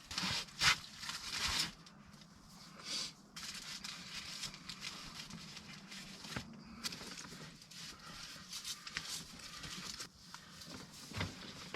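Irregular rustling and crinkling, with a few short clicks, from hands working as a pork tenderloin is lashed up with cord.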